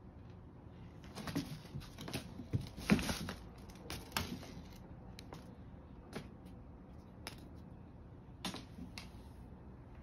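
A cat scampering and pouncing on a hardwood floor while playing: a cluster of quick clicks and scuffles of paws and claws, loudest about three seconds in, then a few scattered taps.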